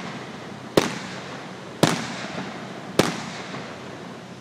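Fireworks going off: three sharp bangs about a second apart, each trailing off in a rolling echo.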